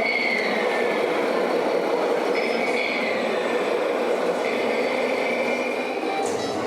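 Electric motors and gearboxes of RC model trucks and construction machines whining over a steady mechanical hum. The whine rises and falls in pitch as the models speed up and slow down.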